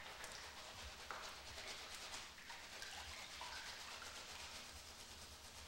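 Faint scrubbing of a wet straw bundle against skin in a bath, with water dripping from it.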